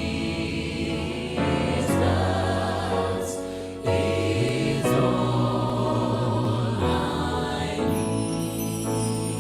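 Gospel choir singing held chords without clear words, the chord changing every few seconds.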